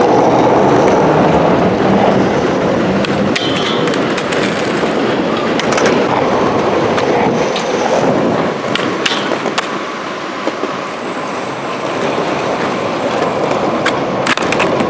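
Skateboard wheels rolling over concrete, a steady loud rolling noise, with a few sharp clacks of the board.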